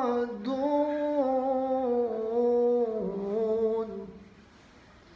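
Melodic Quran recitation (tajwid): a single voice draws out the verse-ending word in long, gently wavering held notes, stepping down in pitch about three seconds in and fading out about a second later.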